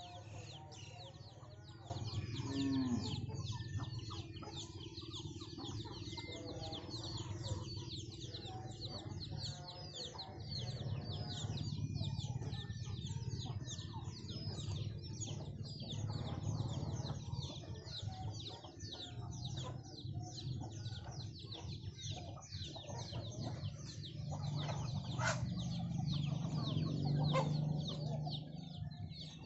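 Chickens feeding as a flock: hens clucking low while chicks peep in a fast, continuous stream of short high calls.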